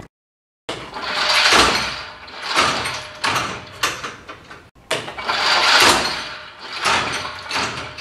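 Rope being hauled through a pulley on a drop test tower, likely to raise the drop weight again. It comes as a series of rasping swells roughly a second apart, each rising and fading.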